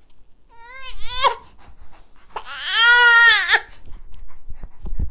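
Newborn baby crying: a short rising cry about a second in, then a longer wail of about a second that rises and falls in pitch.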